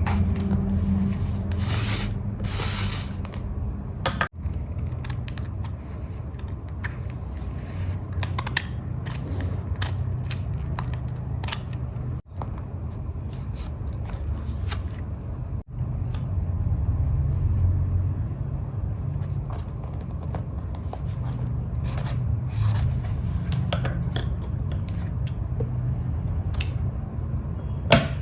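Paper being handled, rubbed and cut while making a journal page, with many short crisp snips and clicks.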